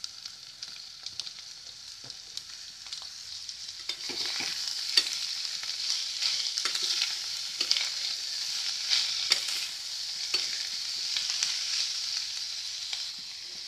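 Julienned carrots and capsicum stir-frying in hot oil in a wok: a steady sizzle with the spatula scraping and clicking against the pan. The sizzle gets louder about four seconds in as the vegetables are turned through the oil.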